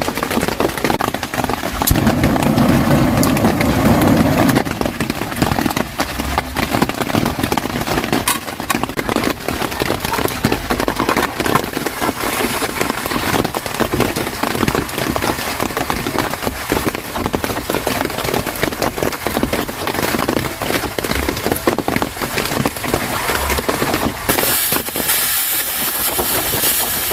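Cabbage frying in oil in a small camp pan on a gas canister stove: steady crackling and sizzling. The sizzle grows brighter and louder near the end as the cabbage is pressed down in the pan.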